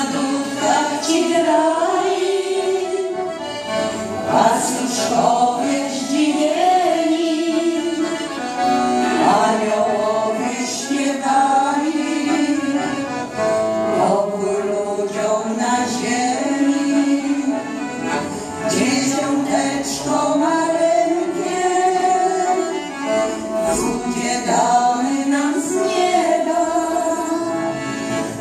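Small women's vocal group singing a Polish Christmas carol (kolęda) with piano accordion accompaniment, phrase after phrase.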